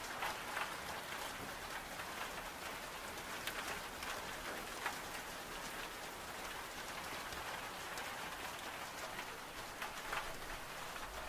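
Steady heavy rain pattering on window glass, mixed with scattered sharp pops and crackles from a wood-burning stove.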